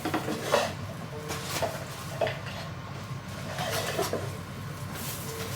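Groceries being handled and set down: scattered light knocks and clinks, several in a few seconds, over the steady low hum of an air conditioner.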